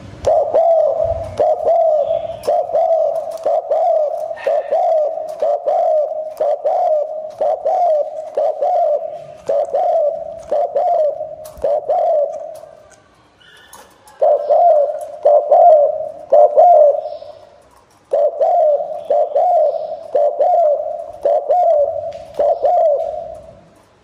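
Spotted dove cooing in a fast run of low, evenly repeated coos, a little under one a second, pausing briefly twice. This is the rapid cooing that keepers play to provoke and lure wild spotted doves.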